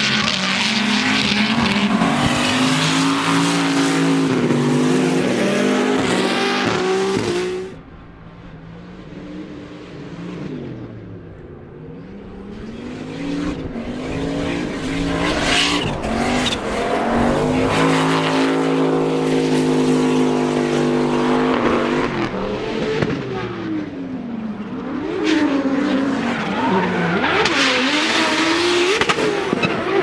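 Turbocharged LS V8 drift car engine held high in the revs with tyres screeching as the car slides through the corners. The sound drops away suddenly about eight seconds in, builds back over several seconds, then swings quickly up and down in revs near the end.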